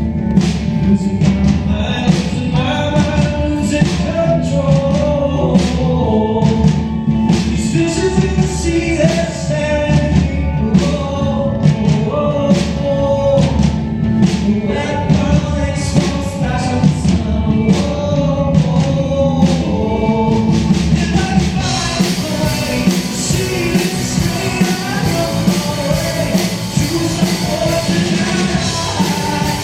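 Live concert recording of a band and singer performing a pop-rock song, sung melody over heavy bass and a steady drum beat. About two-thirds of the way in the low end thins out and a bright high hiss comes in.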